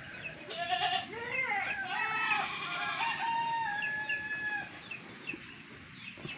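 Chickens calling over one another: several pitched, drawn-out calls overlap, then die away about four and a half seconds in.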